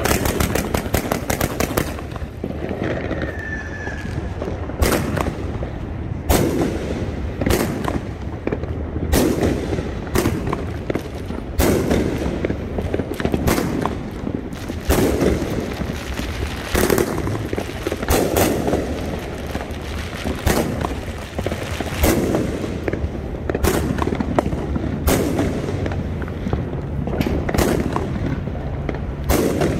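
Sky Bacon 'Hog Smash' 500 g consumer firework cake firing. A quick crackling volley fills the first two seconds, then single shots launch and burst at a steady pace of about one a second.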